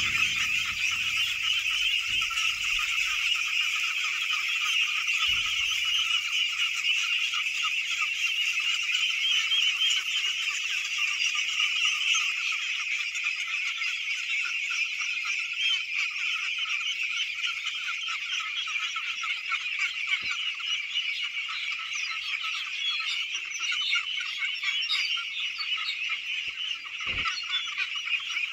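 A large flock of young domestic ducks quacking all at once, a dense, unbroken chorus of many overlapping calls.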